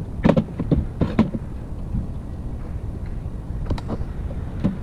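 Handling noise as a rubber pedal pad is pushed onto a clutch pedal by hand: a few scattered knocks and rubbing sounds over a steady low rumble.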